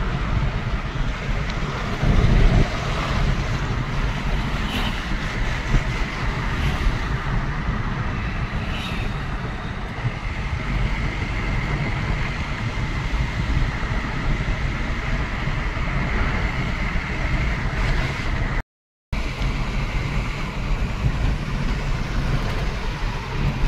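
Steady road and engine noise of a moving car, heard from inside the cabin, with a faint steady whine in the middle stretch. The sound cuts out briefly a little after three-quarters of the way through.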